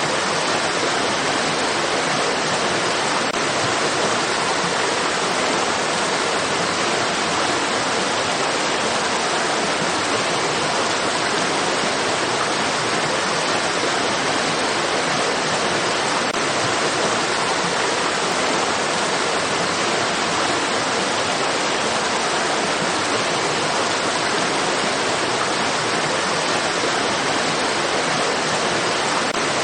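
Water of a stream rushing in a steady, unbroken hiss that neither rises nor falls.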